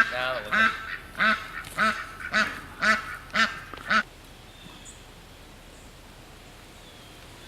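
Duck quacking: a series of about eight loud quacks, roughly two a second, that stops about four seconds in.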